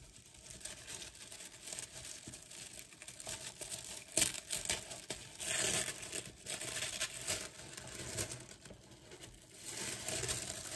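Thin tissue paper crinkling and rustling as it is peeled back and unfolded from around folded bed sheets in a cardboard box, with a sharper crackle about four seconds in.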